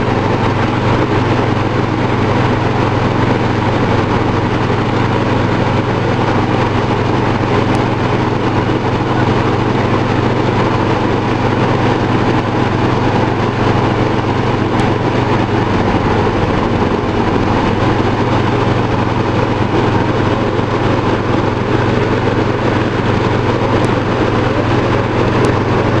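Super Grand rice thresher running steadily while threshing rice, its engine and spinning threshing drum making a loud, constant drone with a low hum.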